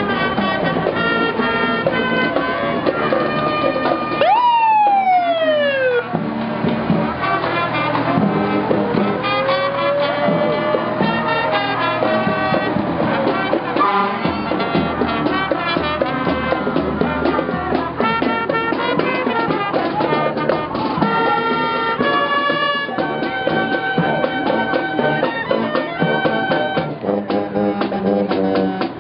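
Marching band playing brass music throughout. About four seconds in, a fire engine siren gives a short whoop that rises sharply and then falls away over a second or two.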